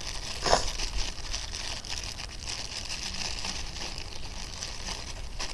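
Thin plastic packaging bag crinkling as it is handled, with one sharper rustle about half a second in, as a squishy toy is pushed back into it.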